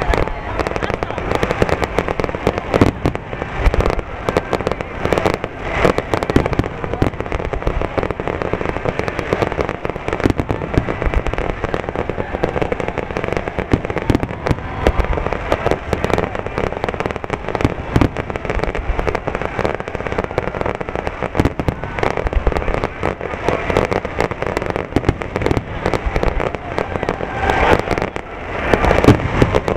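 Fireworks finale barrage: aerial shells bursting in rapid succession, a dense, unbroken run of overlapping bangs that swells slightly near the end.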